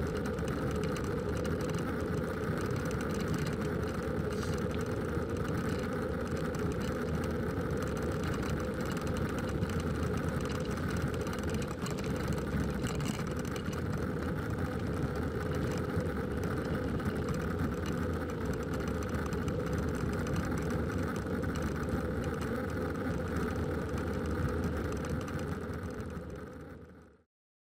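Steady ride noise of a bicycle rolling on an asphalt lane, tyres and drivetrain running, fading out near the end.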